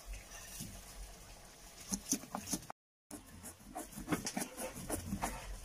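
Stone pestle crushing and grinding peppercorns, clove, cumin and garlic in a volcanic-stone molcajete: irregular gritty scrapes and crunches, starting after a quiet second or two and cutting out briefly near the middle.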